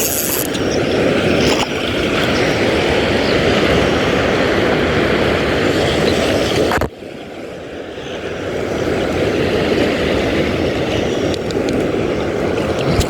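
Loud, steady rushing noise that drops sharply about seven seconds in, then builds back up over a few seconds.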